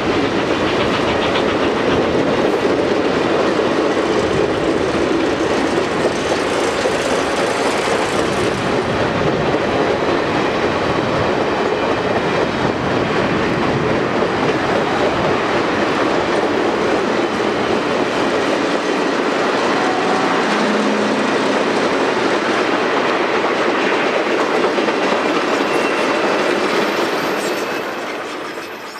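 Passenger cars of an excursion train rolling past on steel wheels over the rails, a steady loud noise that fades out near the end as the last car clears.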